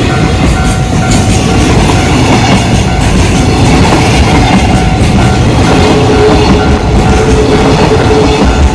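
Freight train rolling past a railway level crossing, its wheels clacking over the rail joints, while the crossing's warning bell keeps ringing with a steady, pulsing tone. A thin steady squeal rises over the train about six seconds in.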